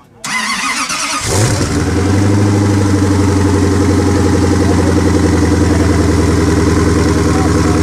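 A car engine cranked by its starter for about a second, catching with a brief rising flare and settling into a steady idle.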